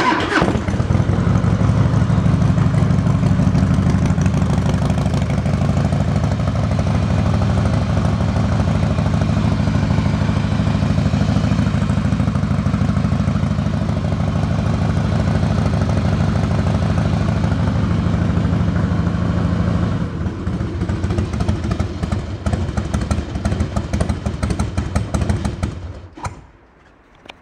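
Harley-Davidson Softail FXST's carburetted 1450 cc Twin Cam 88B V-twin started at the very beginning, catching with a brief rising rev, then idling steadily. Over the last few seconds it runs a little quieter and more unevenly, and it stops near the end.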